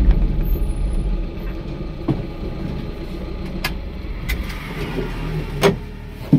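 Engine and road noise heard from inside a tempo's cab as the small goods vehicle slows. The engine hum drops after about a second and settles lower, with a few light knocks along the way.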